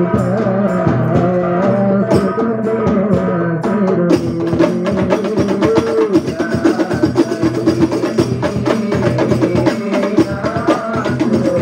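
Hadrah ensemble of rebana frame drums played in an interlocking rhythm, with a voice singing a sholawat melody over the drumming. The drum strokes grow denser and faster about four seconds in.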